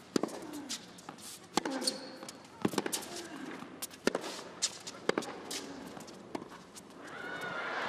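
Tennis rally: a racket striking the ball, with the ball bouncing on the hard court, at roughly one sharp crack a second. Crowd cheering swells near the end as the point is won.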